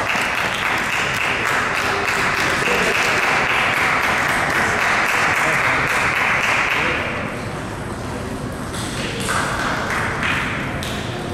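Table tennis balls pinging off bats and tables as sharp, repeated clicks over a steady hubbub of crowd noise in a large hall; the hubbub thins out about seven seconds in.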